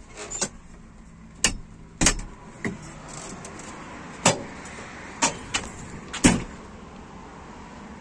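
A series of about eight sharp, irregularly spaced knocks and clicks over a steady low hum.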